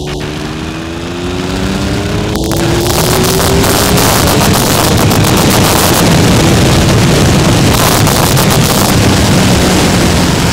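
Triumph Tiger 1050's three-cylinder engine rising in pitch as the motorcycle accelerates. Wind rushing over the microphone builds from about three seconds in and grows louder than the engine.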